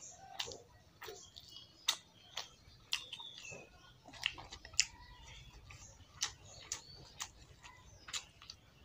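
Close-up mouth sounds of a person eating rice and fried potato by hand: irregular wet clicks and smacks of chewing, spaced unevenly.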